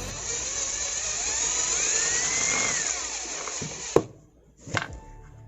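Buildskill 12-volt cordless drill running, its motor whine rising and then falling in pitch, stopping about four seconds in. Two sharp clicks follow.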